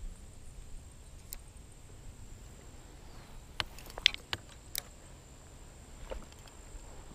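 A few sharp clicks and taps from handling a fishing rod and spinning reel: a single click, then a quick cluster of clicks between about three and a half and five seconds in, and a couple more near the end. Beneath them is a faint steady high whine and a low rumble.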